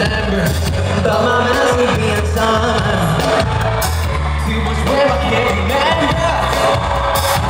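Live pop music from a band with keyboards and drums, a male voice singing over a strong bass line.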